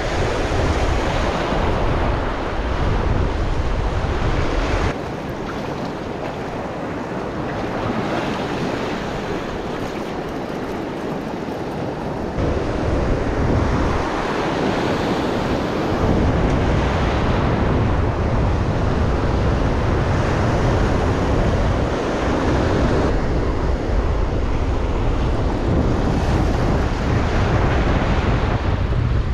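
Ocean surf washing and breaking against the shore, with wind buffeting the microphone. The wind rumble drops away about five seconds in and returns strongly a little past the middle.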